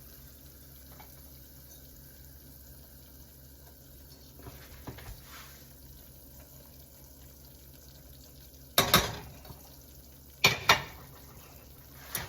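Two short, loud scrapes or clatters of a kitchen utensil against a pan or bowl near the end, about a second and a half apart, as the spice mix is added to a flour-and-oil roux. Before them there is only a faint, steady low background.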